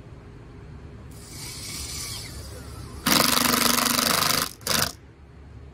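Cordless 1/4-inch impact driver driving a long screw into a plastic mudguard. It spins the screw in quietly, then hammers loudly for about a second and a half to seat it, then gives one short final burst.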